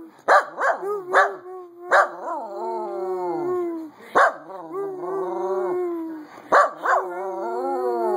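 A dog barking and howling in turns: a few short, sharp barks, then a long drawn-out howl that sags in pitch at its end, three times over. Excited vocalising, aimed up at the person.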